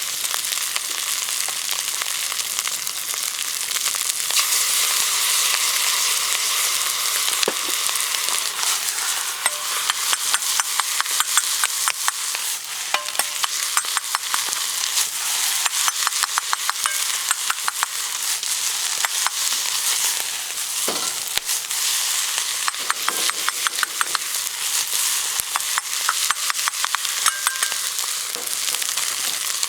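Fried rice sizzling steadily in a Uniflame camp wok over a campfire as it is stirred, with many quick clicks and taps through the middle stretch.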